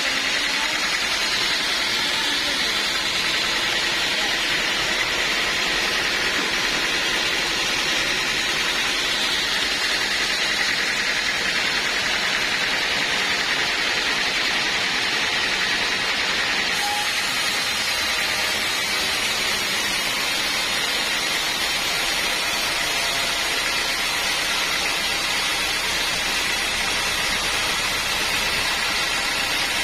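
Sawmill band saw running, a steady loud rushing noise with no break.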